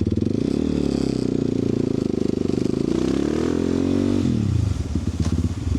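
Car engine and exhaust running under way, the engine pitch rising and bending, then dropping sharply about four seconds in before settling lower.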